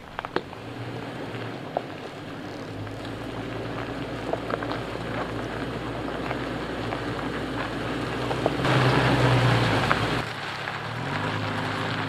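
Toyota Tacoma pickup driving slowly over a rocky dirt track, engine hum and tyres on gravel with scattered crunches and clicks of stones. It grows louder as the truck comes near and is loudest about nine seconds in, then changes abruptly about ten seconds in to a steadier, quieter engine hum.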